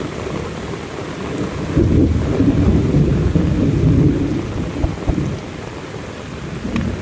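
Thunder rumbling over steady heavy rain. The rumble swells about two seconds in and dies back a few seconds later.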